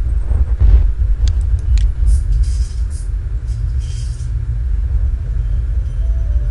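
Cinematic sound-design intro playing back: a deep, steady rumble with a whoosh about half a second in, a few sharp clicks, and short hissing swells around two and four seconds.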